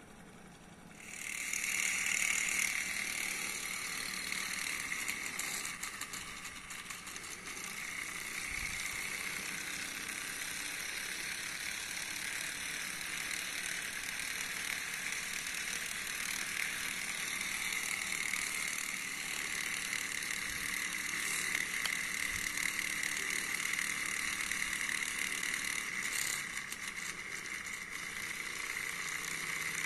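Mini Ringbom-Stirling hot-air engine speeding up about a second in, then running fast with a steady high-pitched mechanical rattle. With its control valve opened up, it runs near its top speed of around 2,000 RPM and the speed wavers a little as the valve is trimmed.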